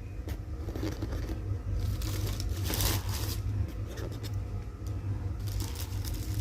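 Takeaway food containers and their packaging being handled: irregular scraping and crinkling, loudest about three seconds in, over a steady low hum.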